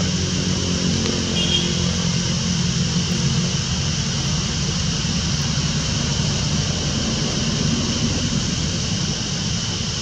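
A steady low engine drone with a steady high hiss over it.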